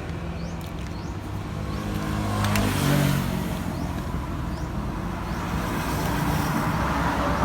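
Small motorcycle engine idling, revving up briefly about two and a half seconds in before settling back.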